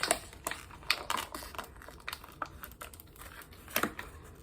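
Packaging being pulled apart by hand: irregular crinkling and small sharp clicks, with a louder click near the start and another a little before the end.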